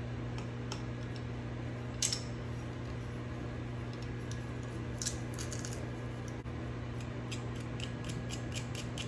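Metal garlic press crushing a garlic clove, with a few isolated clicks of its handles, then a quick run of light clicks near the end as a measuring spoon scrapes the minced garlic out of the press. A steady low hum underneath.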